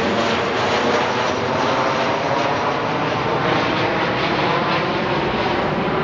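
Steady engine noise: a continuous broad rush with a faint hum in it, holding an even level throughout.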